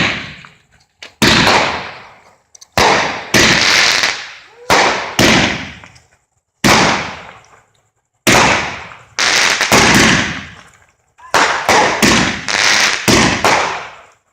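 Pyro Demon 'Show in a Box' 51-shot consumer fireworks cake firing: a run of sharp bursts, each with a trailing echo, coming faster in quick clusters in the second half.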